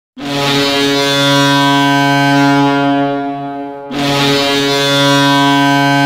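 Ice hockey goal horn: a deep, loud air horn with many overtones, blown in two long blasts. The first lasts nearly four seconds and the second follows straight on.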